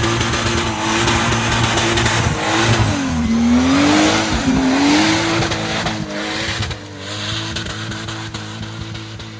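Off-road buggy's Toyota 2JZ-GTE turbocharged straight-six driving hard past on a muddy track, its tyres churning mud. The engine note dips and climbs back as it passes about three to four seconds in, then grows quieter as it pulls away.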